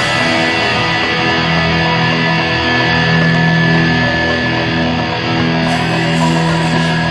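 Rock music led by guitar, with held notes and an even loudness.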